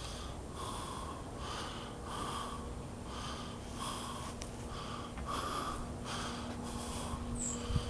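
A person breathing hard in quick, even breaths, about one every three quarters of a second, as when panting on a climb.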